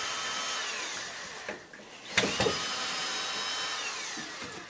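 Power drill or driver running in two bursts, each time spinning down with a falling whine as the trigger is released: one winding down about a second in, the other starting about two seconds in.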